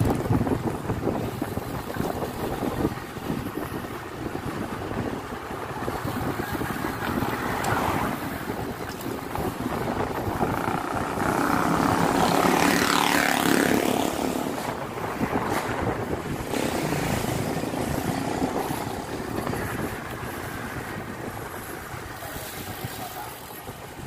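Wind rushing over the microphone and road noise while riding a road bike at speed. About twelve seconds in, a motor vehicle's engine passes, rising and then falling in pitch.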